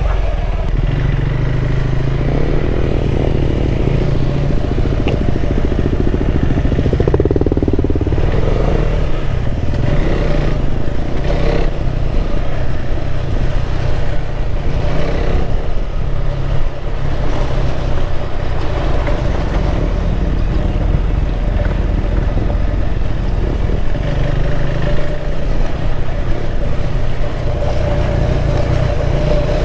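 KTM 390 Adventure's single-cylinder engine running under way on a dirt road, its pitch rising and falling with the throttle.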